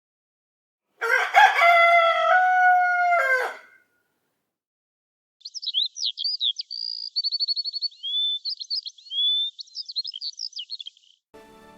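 A rooster crowing once, a long cock-a-doodle-doo of almost three seconds. After a short pause, small birds chirp and twitter in quick high notes and trills for about six seconds.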